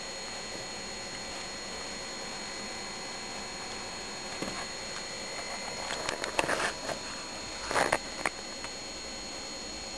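Two short bursts of rustling and scuffing, one a little past the middle and one near the end, over a steady background hiss.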